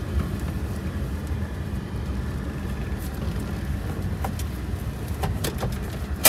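Car engine running at low speed while the car is being parked, a steady low rumble, with a few light clicks in the last couple of seconds and one sharp click at the very end.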